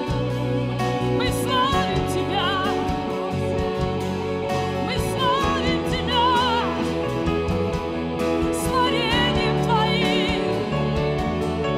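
Live church worship music: a singer holding long melodic notes with vibrato over sustained chords and a low bass line.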